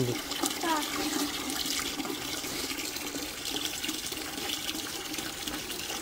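Water from a garden hose pouring steadily into a metal bucket.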